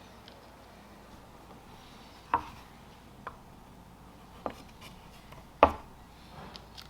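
Small objects being picked up and set down on a hard workbench: four sharp clicks and taps, the loudest about two-thirds of the way in, with a little rustling near the end.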